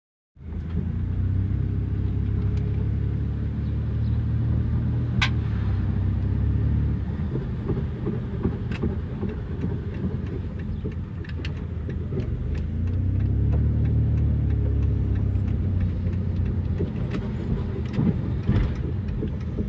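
1999 Dodge Grand Caravan's V6 engine running, its revs rising and falling in two long swells, with scattered clicks and rattles. The van's transmission is failing.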